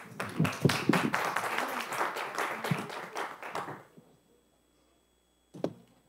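Audience applauding, dying away after about four seconds and cutting to near silence, with one short soft sound near the end.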